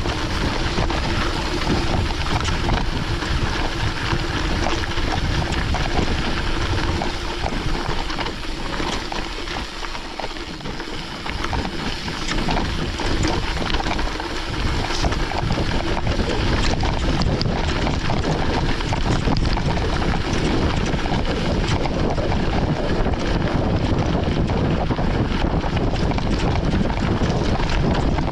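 Wind buffeting the microphone and tyres running over a gravel forest road on a moving mountain bike, with a steady patter of small knocks and rattles. The noise eases for a few seconds near the middle, then picks up again.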